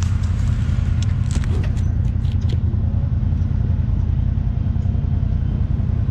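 Side-by-side UTV engine running with a steady deep drone. A scatter of sharp clicks and knocks comes in the first two and a half seconds.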